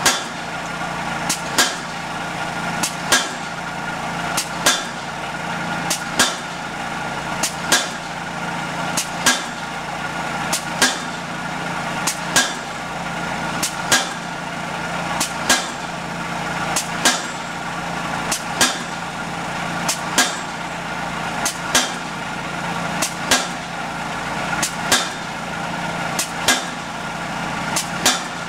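600 lb pneumatic piling hammer driving a wooden dock piling into the mud, landing a sharp blow about every second and a half with lighter clicks in between. A steady engine hum runs underneath.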